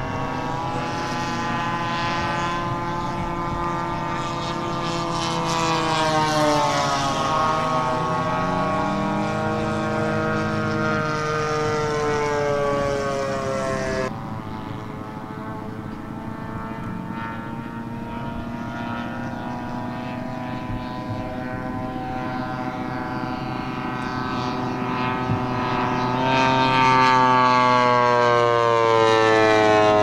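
Propeller engines of large radio-controlled model airplanes in flight, a steady engine note whose pitch slides down as a plane passes and rises again near the end. The sound breaks off abruptly about halfway through and carries straight on with another pass.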